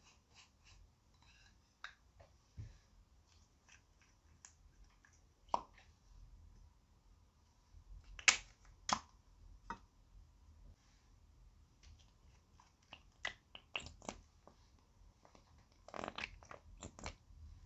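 Small handling sounds of makeup packaging over a glass dish: scattered light clicks and taps, two sharp clicks about eight and nine seconds in, and a cluster of clicks near the end as the cap of a liquid makeup tube is worked open.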